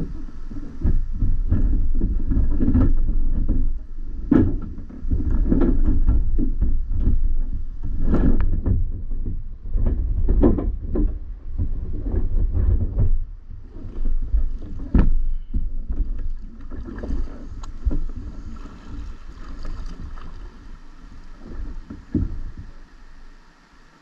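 Small paddle boat moving through flowing river water: irregular splashes and knocks against the hull over a low rumble, easing off near the end.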